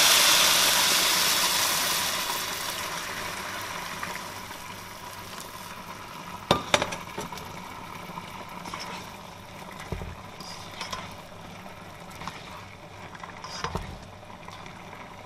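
Hot water poured over rice frying in a hot pan, a loud sizzling hiss that dies away over the first few seconds as the pan cools under the water. Then a quieter bubbling simmer with a few sharp clinks of a spatula against the pan.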